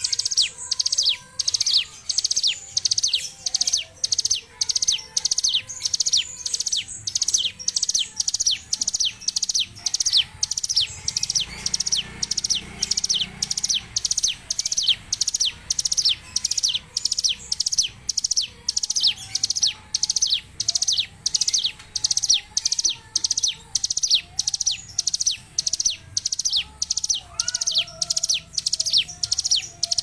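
Caged hill prinia (ciblek gunung) in a long unbroken rattling song burst: a rapid run of sharp, high, downward-sweeping notes at about two a second, kept up without pause.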